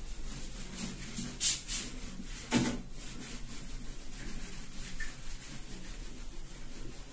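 Whiteboard being wiped clean by hand: steady rubbing strokes across the board, with two louder swipes in the first three seconds.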